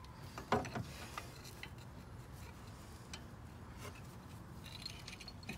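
A few faint metal clicks and rubbing as hands work at a rusty rear disc brake caliper, the sharpest click about half a second in.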